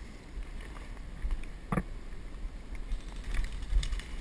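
Low rumble of handling and wind on a head-mounted action-camera microphone as the wearer moves through woodland undergrowth, with one sharp click about two seconds in and a few fainter irregular clicks near the end.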